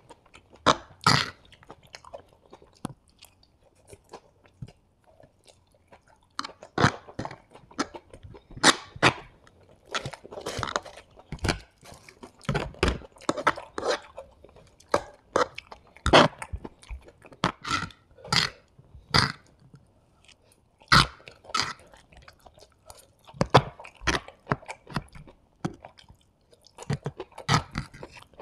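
Close-miked chewing of vegetable hakka noodles: wet mouth clicks and smacks coming irregularly, about every half second to second.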